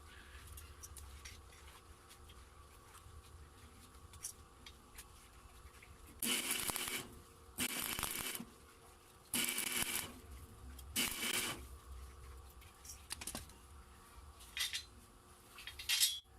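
About five short scraping or rubbing strokes, each under a second and irregularly spaced, over a faint low hum.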